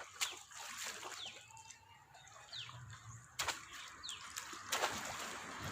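A bird calling with short, quick downward-sliding chirps, repeated about every second and a half. A few sharp impact sounds mixed in, the loudest about three and a half seconds in.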